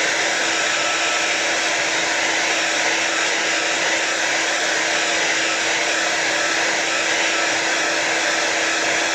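Hairdryer running on its hot setting, a steady whooshing blow with a constant motor hum under it.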